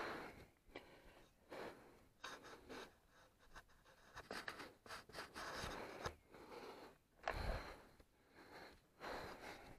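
Irregular rubbing and wiping: a glove or cloth clearing dirt from motocross goggles. A dull thump comes about seven seconds in.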